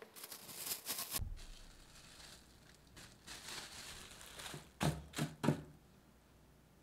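Plastic cling wrap crinkling as it is handled and laid over dough balls on a countertop, followed by three quick soft knocks near the end as it is pressed down.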